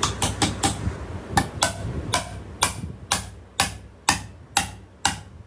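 A hammer striking metal: a quick run of blows, then steady blows about two a second, each with a short ring.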